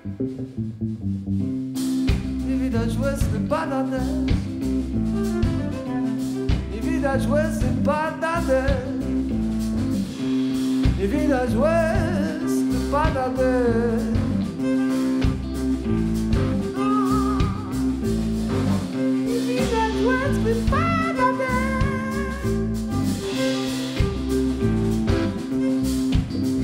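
Rock-blues band playing an instrumental passage: a violin melody with vibrato over electric guitar, bass guitar and drum kit, coming back in after a momentary break at the very start.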